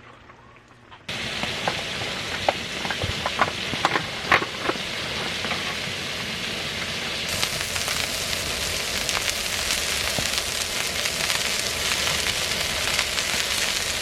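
Food sizzling in a hot pan: a steady hiss with sharp spattering pops, which start suddenly about a second in and thin out after the first few seconds.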